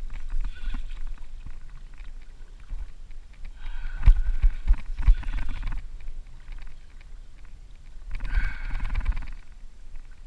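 Spinning fishing reel whirring in three short bursts while under load from a hooked tarpon, with low knocks underneath that are loudest about four to five seconds in.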